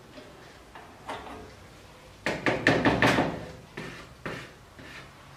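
Clicks and knocks of a stand mixer's wire whisk being handled and taken off, hard plastic and metal parts knocking together. A quick cluster of knocks a little past two seconds in is the loudest, with single knocks about a second in and near four seconds.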